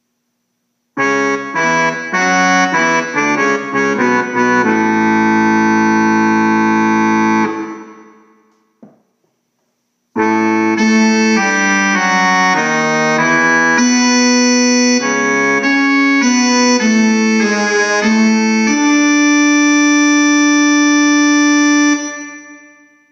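Casio electronic keyboard playing two short melodic phrases. Each is a run of notes that ends on a held chord and fades away. The first starts about a second in and dies out around eight seconds; the second begins about ten seconds in and fades out near the end.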